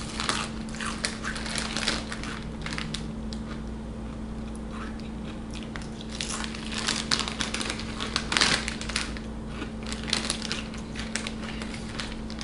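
Foil-lined SunChips bag crinkling as it is handled and turned over, mixed with the crunch of a chip being bitten and chewed. The crinkles come in two clusters, at the start and again from about halfway in.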